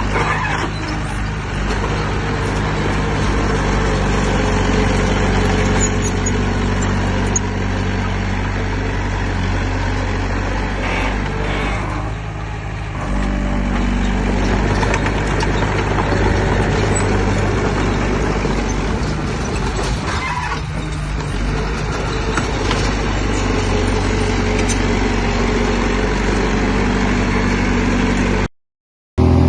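Heavy diesel engine of earthmoving machinery running steadily, its note shifting under changing load twice. The sound cuts off for under a second near the end.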